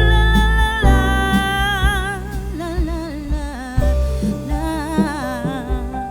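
Background music: a song with a singing voice holding long, wavering notes over a steady beat.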